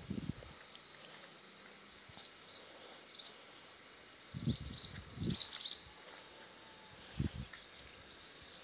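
A small bird chirping in short high calls, in a few scattered clusters with the loudest run of chirps about halfway through. Brief low rumbles come and go under it.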